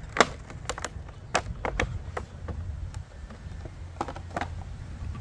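Cardboard box flap and plastic bottle handled during unboxing: a run of sharp taps and clicks in the first two seconds, then two more about four seconds in, over a steady low rumble.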